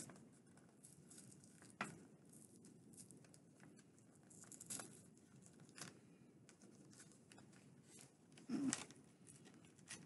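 Faint rustling and small clicks of paper and packaging being handled, with a sharper click about two seconds in and a louder rustle near the end.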